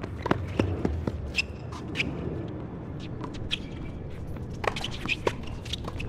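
Doubles tennis rally on a hard court: sharp racket strikes on the ball mixed with quick footsteps and short sneaker squeaks as the players run.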